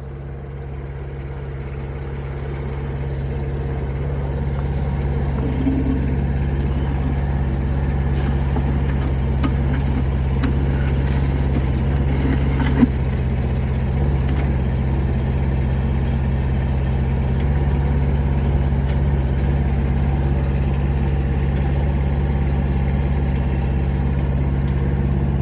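Mini excavator's engine running steadily while it works, growing louder over the first few seconds and then holding level. There are a few light knocks, with one sharper click a little before halfway.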